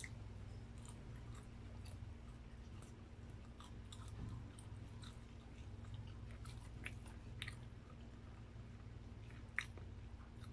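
Close-miked chewing of grilled barbecue meat: soft, wet mouth clicks scattered through, over a steady low hum. One sharper click comes near the end.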